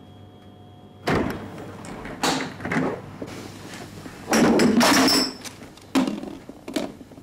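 Irregular knocks, bumps and rustling of someone moving about and handling things, starting suddenly about a second in after a faint steady hum; the loudest stretch comes in the middle, with a few sharp clicks near the end.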